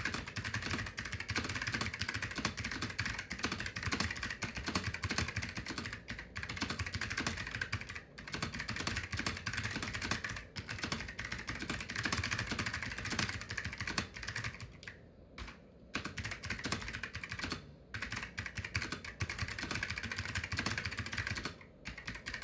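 Fast continuous typing on an Ortek MCK-101FX keyboard with clicky Hua Jie Alps-clone switches with wide click leaves: a dense stream of sharp clicks, broken by a few brief pauses.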